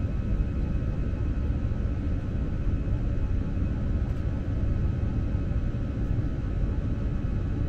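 Jet airliner cabin noise during the climb after takeoff: a steady low rumble of engines and airflow, with faint steady high tones above it.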